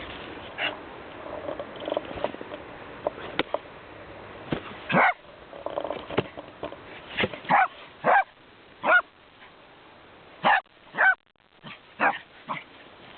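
Small dog barking in short, separate barks, about ten of them, most coming in a quick run in the second half.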